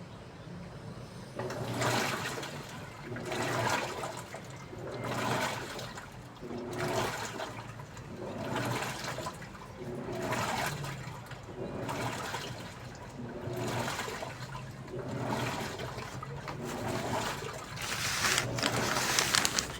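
Daewoo washing machine churning its wash water, with a swish of water about every second and a half to two seconds as the drum or agitator turns one way and then the other, over a steady low motor hum.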